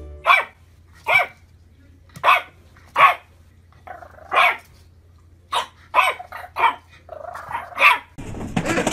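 A puppy barking in short, sharp yaps, about eight of them at irregular intervals, some coming in quick pairs.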